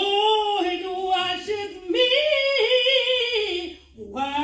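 A woman singing solo with no instruments, holding long, slightly wavering notes in two drawn-out phrases. There is a brief breath, and another phrase begins near the end.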